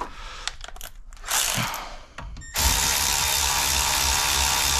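Cordless electric ratchet starting about halfway through and running steadily, spinning a damaged M10×1.25 bolt through a thread-restoring nut clamped in a vise to chase its threads. Before it, light handling knocks as the tool is picked up.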